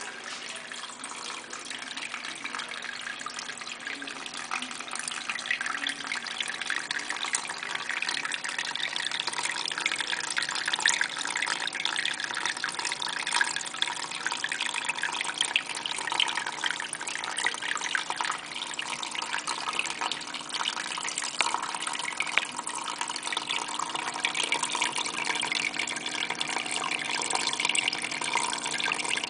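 Water from a small terrarium pump trickling and dripping steadily down silk vines in a vivarium, a continuous splashing patter that grows a little louder over the first several seconds.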